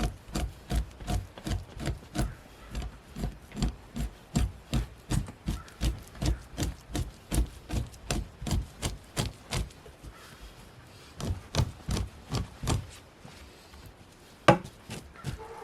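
Rhythmic strokes of a hand scraper pushed down a hide draped over a pole, about two to three a second, fleshing the membrane off the flesh side. The strokes pause for about a second, resume briefly, and end with a single sharp knock.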